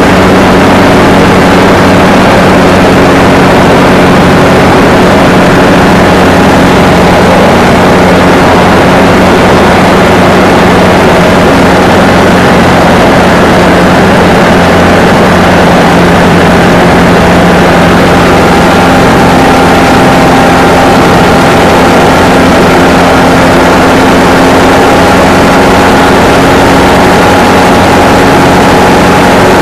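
Light sport aircraft (ultralight trike) engine and propeller running steadily close by, loud and unchanging, with a steady hum.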